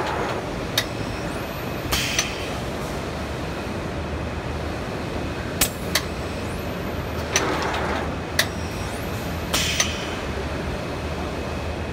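Heliot Sockspeed sock boarding machine running, with a steady mechanical hum. Sharp metallic clicks and clacks come from its linkages every second or two, and there are a few short rushing noises, one near the start and two more later on.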